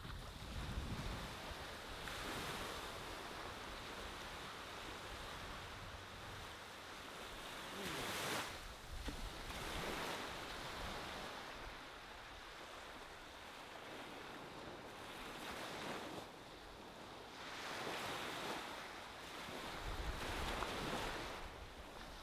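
Ocean waves breaking and washing up on a sandy beach, the surf swelling and easing every few seconds. Wind rumbles on the microphone near the start and again near the end.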